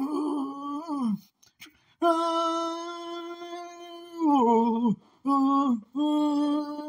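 One person's voice singing a wordless tune in four long held notes, the second the longest, each ending with a slide down in pitch.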